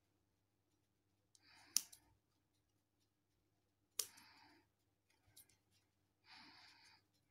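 Scissors snipping through a foam sponge: a few short, quiet cuts, two of them ending in a sharp click as the blades close, about two seconds and four seconds in.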